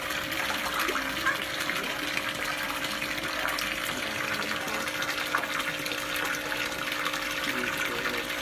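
Water pouring into a koi pond from an inflow pipe and splashing, a steady rush with a low steady hum underneath.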